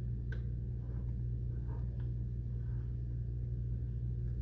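A few faint clicks of an Allen key turning a heat exchanger cover bolt, over a steady low hum.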